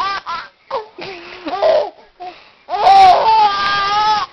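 A pet's vocal cries, pitched and wavering: a few short calls, a lower cry about a second in, then one long drawn-out cry near the end.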